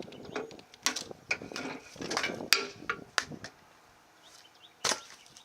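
Sharp clicks, knocks and scraping of metal and plastic parts and hand tools as evap system brackets and components are unbolted and pulled off a Chevy S10 pickup. Irregular clicks and clatter for the first three seconds or so, then a pause and one sharp knock near the end.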